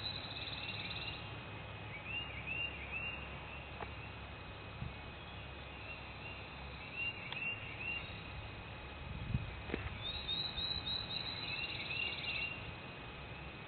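Songbirds singing: one song of quick sliding notes running into a fast trill, heard twice about ten seconds apart, with shorter chirping phrases from other birds in between, over a low steady rumble.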